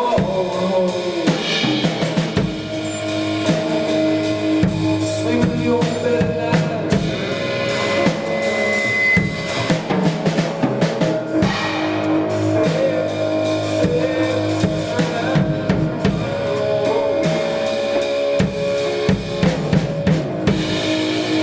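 Instrumental jam-band rock: a drum kit with bass drum and snare keeps a busy beat under long held notes from the other instruments.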